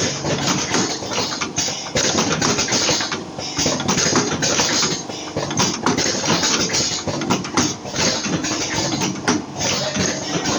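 Automatic vertical cartoning machine running: a steady mechanical clatter and hum, with short hissing bursts repeating about once a second as it cycles through the boxes.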